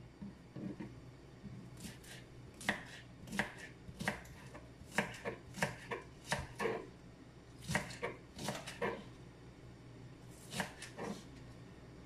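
Kitchen knife chopping vegetables on a wooden cutting board: a run of irregular chops that start about two seconds in, pause briefly near the end, then end with a few more.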